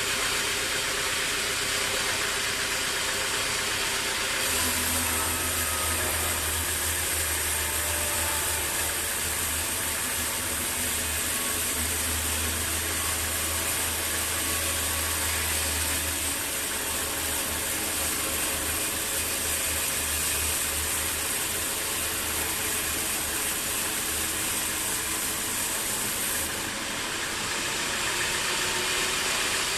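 Sawmill machinery running steadily, with an added high hiss from about four seconds in until near the end.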